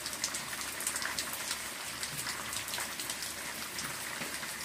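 Pen writing on paper: a run of light, irregular scratching strokes over a steady hiss.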